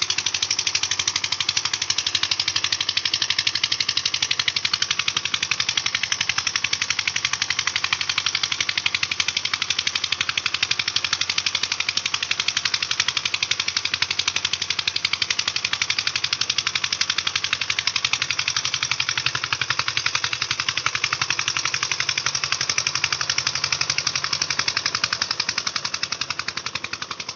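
Eicher tractor's diesel engine running steadily under load, a fast, even train of knocking pulses, fading out at the very end.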